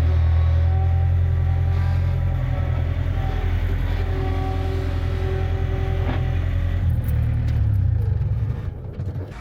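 Vehicle engine running steadily with a deep, loud rumble. It falls away about eight and a half seconds in.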